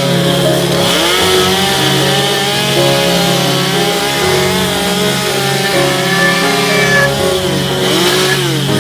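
Stihl two-stroke chainsaw cutting into soft cedar, its engine pitch dipping and climbing again as the chain bites and is eased off, about a second in and again near the end.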